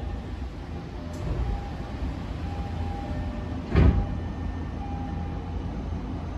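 Passenger doors of a Tokyo Metro 05 series train sliding shut, ending in a loud thud as they meet about four seconds in, over the low steady hum of the stopped car.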